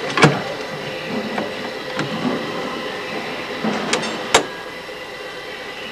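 A few sharp metallic knocks and clicks as hands handle the underfloor electrical switchgear of a W class tram, the loudest one just after the start and another about four seconds in.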